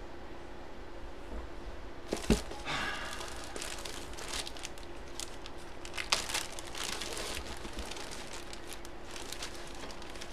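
Plastic packaging crinkling as a bagged jersey is handled and opened, starting about two seconds in, with a sharp knock just after it begins and another loud crackle about six seconds in. A faint steady hum sits underneath.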